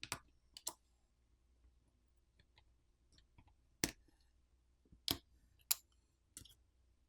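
Scattered small clicks and taps of a tool on a smartphone's internals, as the camera flex-cable connectors are popped off the main board. There is a cluster of clicks at the start, then single sharper clicks every second or so.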